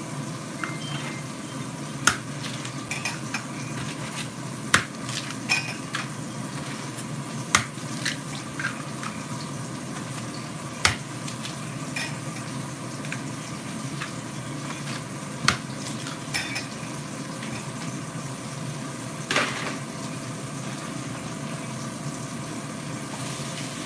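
Eggs cracked against the rim of a stainless steel mixing bowl: sharp taps every few seconds, over the steady sizzle of sausage patties frying in a skillet.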